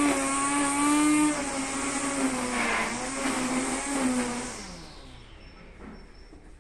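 Corded electric string trimmer running, its motor whine wavering in pitch as the line cuts weeds and grass. About four and a half seconds in it is switched off and the motor winds down, its pitch sliding lower as it fades.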